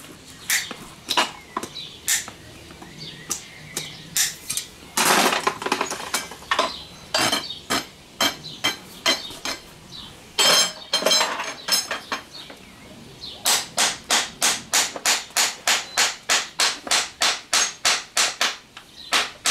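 Farrier's hammer striking horseshoe nails into a horse's hoof, sharp metallic taps. They come irregularly at first, then in a quick steady run of about three strikes a second from roughly two-thirds of the way through.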